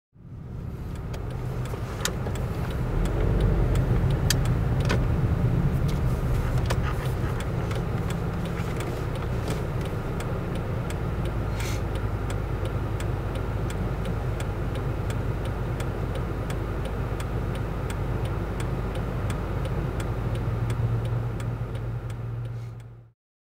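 Steady road and engine noise heard from inside a moving car, with scattered light clicks and knocks. It fades in at the start and cuts off just before the end.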